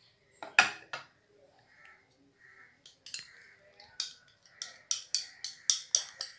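Sharp taps and clinks of kitchen utensils against a stainless steel mixer-grinder jar while ingredients go in, scattered at first and then coming quickly, about four a second, over the last second and a half.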